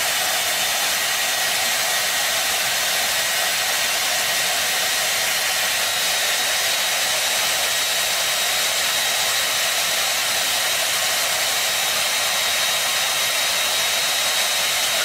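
Handheld hair dryer running steadily: a constant rush of blown air with a faint high motor whine.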